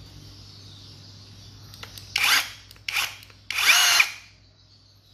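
Ingco 20V cordless rotary hammer run in three short trigger bursts about two seconds in, the motor whine rising and falling with each; the last burst is the longest and loudest.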